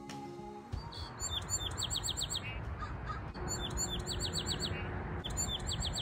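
A songbird sings the same short phrase three times, each a quick run of high, falling notes, over steady background noise. Music fades out about a second in.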